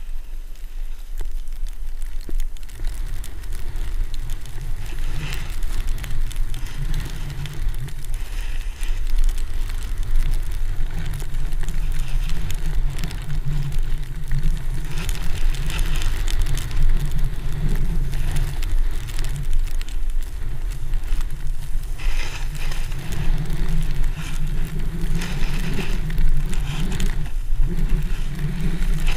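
Snowboard sliding downhill: the board's base and edges scraping and hissing over packed snow in patches, over a steady low rumble of wind buffeting the camera's microphone.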